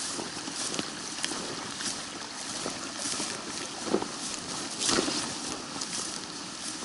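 A rocky creek flowing steadily, with footsteps brushing through tall grass and ferns. The two loudest steps fall about four and five seconds in.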